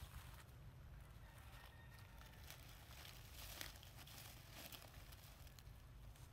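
Faint crinkling and crackling of dry leaves as monkeys move and forage in the leaf litter, with a few sharper crackles in the middle, over a low steady rumble.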